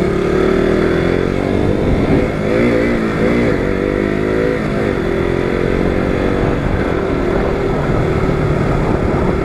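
KTM RC sport bike's single-cylinder engine running while the bike is ridden, picking up speed. The engine note wavers briefly about three seconds in, then runs steady.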